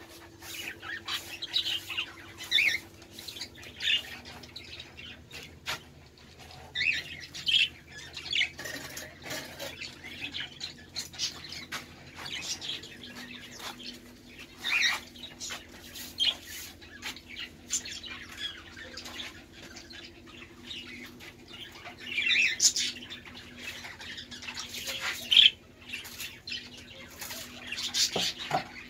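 A roomful of caged budgerigars and cockatiels chirping in short, high calls with squawks mixed in, swelling into louder flurries of chatter around the middle and again in the last few seconds.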